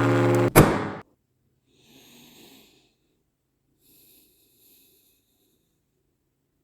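A sustained droning tone over a low hum cuts off abruptly with a loud hit about half a second in, then dies away. Faint breath-like sounds follow, one about two seconds in and a fainter one near four seconds.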